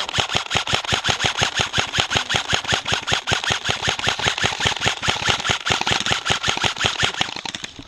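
Airsoft gun firing a long string of rapid, evenly spaced shots, many a second, that stops near the end.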